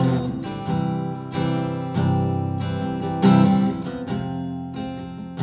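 Acoustic guitar strumming chords, each strum left to ring before the next.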